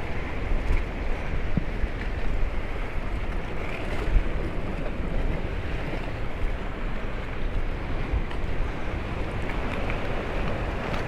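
Sea waves breaking and washing against a seafront walkway, with wind rumbling on the microphone; a steady noise without distinct splashes.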